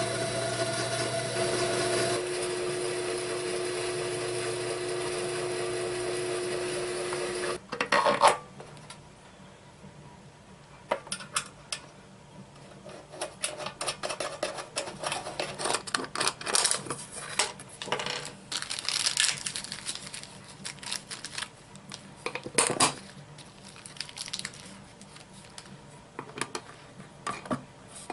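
A freshly repaired rock tumbler running with a steady motor hum, which cuts off suddenly about seven and a half seconds in. After that comes irregular clicking and clattering of small hard objects.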